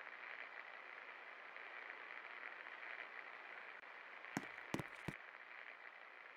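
36-inch SK antique ceiling fan running, with a steady whir. Three quick clicks come about four and a half seconds in.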